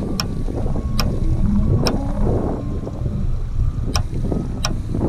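Wind buffeting the camera microphone on an open boat, a dense low rumble broken by a handful of sharp clicks.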